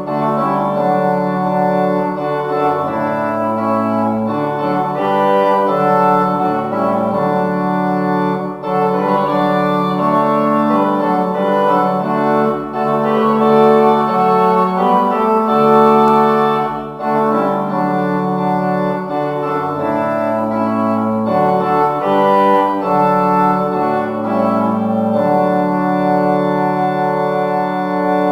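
Church organ playing slow, sustained chords, the harmony changing every second or two.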